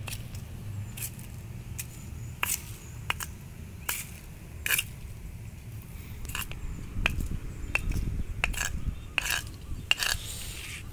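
Irregular sharp clicks and light scrapes, about fifteen in all, as a small plastic toy cow and dry twigs are tapped and pushed about on brick paving. A low steady rumble runs underneath, swelling a little past the middle.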